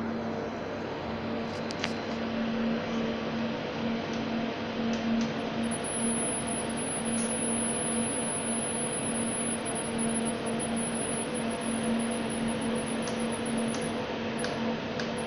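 UPS under test, connected in parallel with another unit, giving off a steady sharp hiss over an electrical hum. A thin, high-pitched whine joins in about six seconds in and fades out near the end. The hissing appears only with the system wired in parallel, and its cause is unknown.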